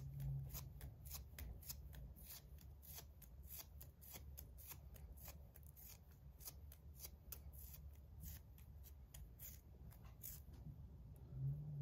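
Adhesive grip tape being peeled off a zirconium slider fidget: faint, irregular crackling ticks, several a second, thinning out near the end.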